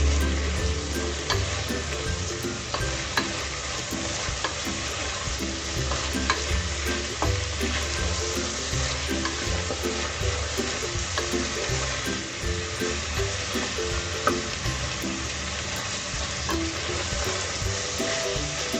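Eggplant, hyacinth beans, curry leaves and green chilies sizzling steadily in hot oil in a pan, with scattered clicks and scrapes of the pan being stirred.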